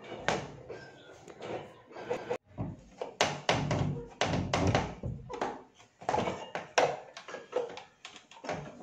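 Irregular knocks, taps and thuds, several close together at times, in a small room.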